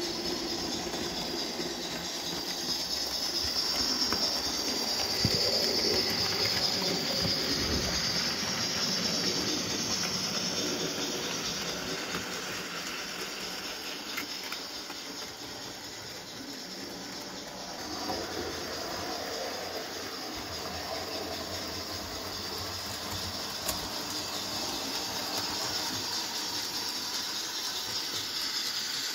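Trix HO-scale 040D model steam locomotive and its wagons running on the layout track: a steady steam-like hiss over the rolling rattle of small wheels on the rails.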